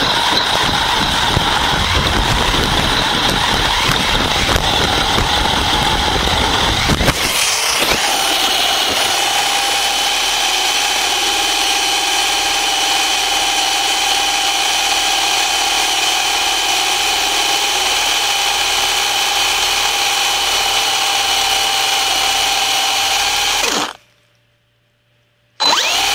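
Radio-controlled buggy running fast on a dirt road, with a rough rumble of motor, tyres and wind, then a crash about seven seconds in. After the crash its motor runs on with a steady whine for about fifteen seconds, the car lying in grass. The sound then cuts off, with one short burst near the end.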